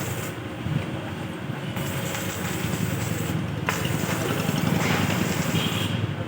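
Steady running noise of a vehicle: a low, even rumble.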